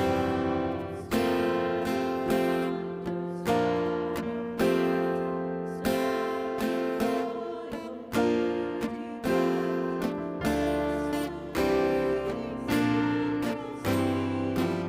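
Acoustic guitar music: slow strummed chords, struck about once a second and each left to ring out.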